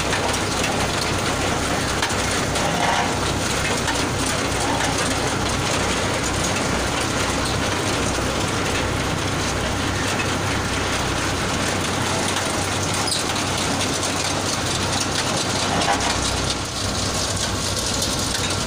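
Orange grading and sizing machine running: a steady clatter and rattle of its rollers and chain with oranges rolling down the sizing chutes, over a steady low hum.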